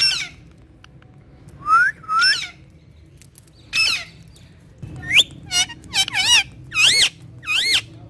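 Indian ringneck parakeet giving short, high calls that rise in pitch. Two come close together a little before two seconds in and one near four seconds, then a quick run of about seven follows from five seconds on.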